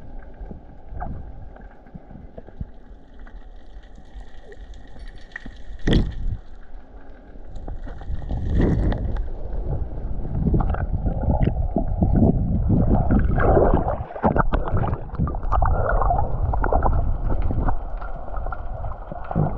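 Muffled water sloshing and gurgling, with a sharp knock about six seconds in. The water noise grows denser and louder from about eight seconds in.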